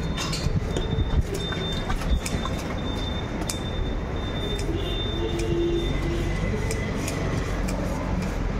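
A long knife cutting and scraping a large pomfret on a wooden chopping block, with short scraping clicks over a steady background rumble.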